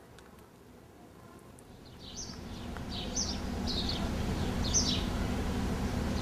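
Outdoor ambience fading in about two seconds in: small birds chirping, short high calls about once a second, over a steady low rumble.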